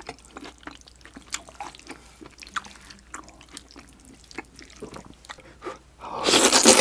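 Close-up mouth sounds of eating: wet, smacking chewing of spicy beef intestines with small clicks, then a loud slurp of a big mouthful of noodles about six seconds in.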